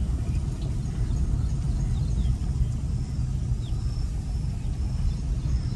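Steady low rumble of a car driving slowly over a rough, broken road, heard from inside the cabin: mostly tyre and road noise, with no clear engine note.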